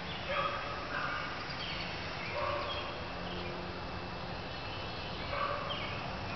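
A dog barking: a few short barks, some of them in quick pairs.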